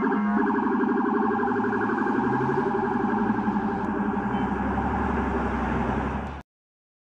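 Police siren sounding in a fast, repeating warble over street traffic, cutting off suddenly about six seconds in.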